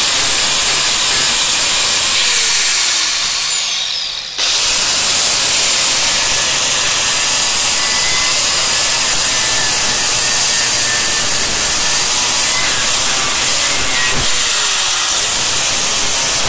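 Angle grinder with an abrasive disc running under load as it grinds the face of a steel knife blank cut from a circular saw blade. Its whine sags and falls in pitch about three seconds in, then the full grinding sound returns abruptly.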